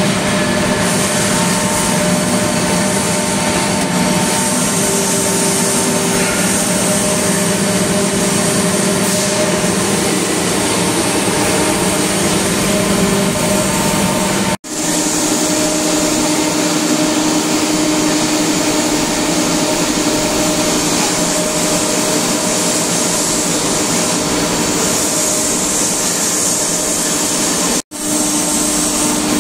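Industrial air compressor running: a loud, steady machine noise with a few hum tones. It cuts out for a split second twice, and the hum changes pitch after the first break.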